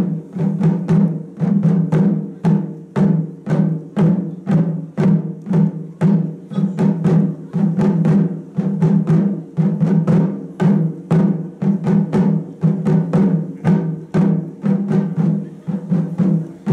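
Taiko ensemble drumming: a row of chū-daiko and large ō-daiko struck together in a steady, driving rhythm of about two to three strokes a second, the drum heads ringing on between strokes.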